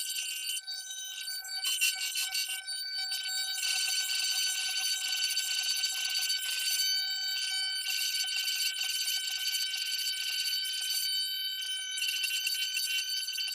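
Small CNC router spindle running with a steady high whine while the bit cuts into wood, with a rasping cutting noise that comes and goes as the tool moves along its path.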